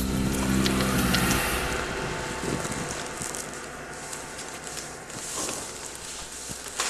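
A low, sustained music chord ends about a second and a half in. It leaves a steady, crackly rustling noise with faint scattered ticks, like handheld-camera and wind noise outdoors.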